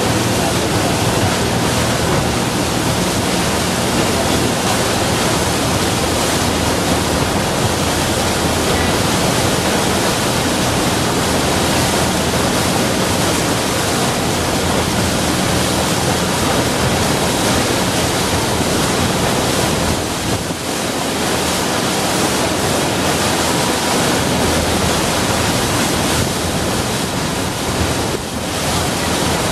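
Steady rush of wind on the microphone and water streaming past a motorboat running across a lagoon, with a low motor hum underneath. The noise dips briefly about two-thirds of the way in and again near the end.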